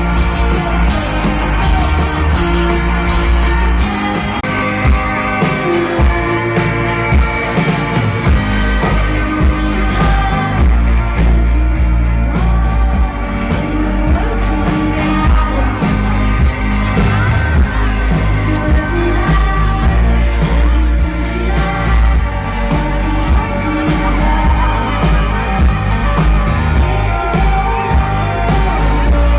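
Background pop-rock song with sung vocals and a steady beat.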